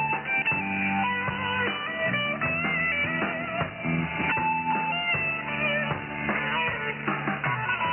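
Guitar-led music played by a pirate station and received on a shortwave radio in upper sideband, which gives it a thin, narrow sound with nothing above about 3 kHz.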